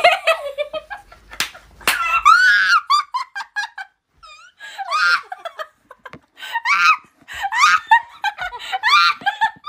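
Young women laughing hard in repeated high-pitched bursts. Two sharp smacks come about a second and a half and two seconds in.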